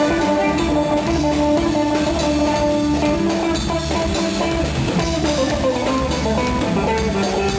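Live band playing an instrumental passage led by guitars, melodic notes over a steady bass and drum beat.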